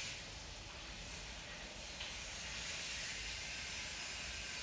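Steady hiss of background room noise, with one faint click about two seconds in.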